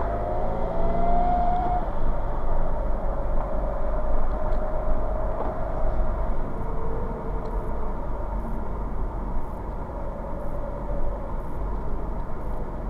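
BMW 116d's N47 2.0 diesel car on the move with a steady low rumble, and over it a thin whine that rises in pitch during the first couple of seconds, then goes on fainter and wavering. This is the strange noise the car makes when driven cold, which garages suspect is a loose piece of metal in the exhaust after the DPF was removed.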